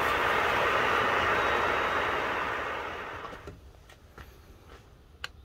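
Charcoal forge fire running with a steady rushing roar while the steel knife blank heats in the coals. It cuts off about three seconds in, leaving a quiet background with a few light clicks.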